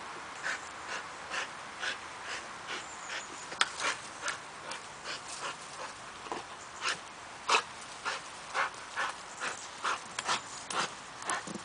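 Bulldog-type dog (Brabanter bullebijter) panting hard from exertion, quick rhythmic breaths about twice a second.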